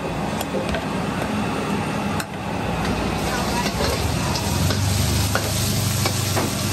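Stir-frying crispy pork belly with chili and garlic in a wok over a gas burner: hot oil sizzling, with the metal spatula clacking and scraping against the wok several times. The sizzle picks up about three seconds in as the pork goes into the wok, with a low steady hum underneath.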